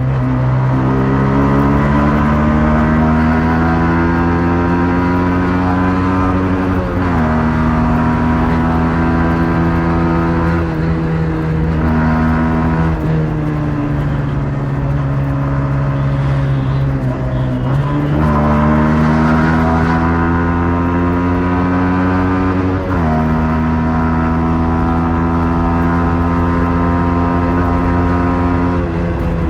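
Yamaha MT-15's 155 cc single-cylinder engine on its stock exhaust, pulling under way: the engine note climbs steadily through the gears, with a sharp drop in pitch at each upshift about seven seconds in and again near the end. In the middle it falls away as the bike slows, then climbs again.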